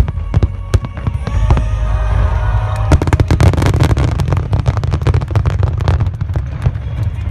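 Fireworks bursting overhead: a run of bangs and crackles with a deep rumble underneath, thickening into a dense rapid volley about three seconds in. Music plays along beneath it.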